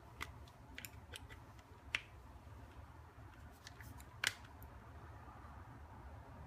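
Scattered small, sharp clicks and snaps as the little brackets holding a Samsung Galaxy S6 Active's inner plate are worked loose, about seven in all, the loudest about four seconds in.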